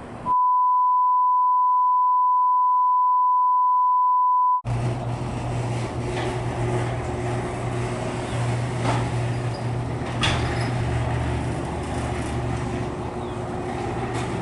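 A long, loud single-pitched beep tone lasting about four seconds, an edited-in bleep, followed by a steady low hum with a few scattered clicks.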